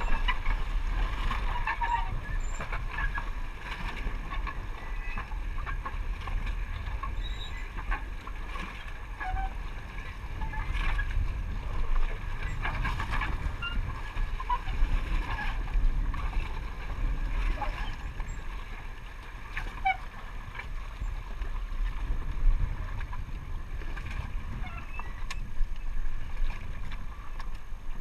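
Jet ski moored against a concrete dock: a steady low rumble of wind and water with scattered small knocks and splashes.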